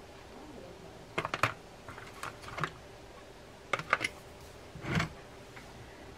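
Scattered light clicks and taps in a few irregular clusters, as small reel parts and tools are handled on a wooden workbench.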